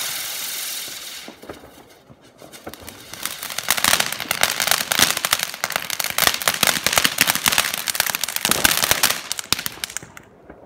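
Firework crackling effect: a steady hiss for about the first second, then a dense run of rapid small pops and crackles that thins out and dies away near the end.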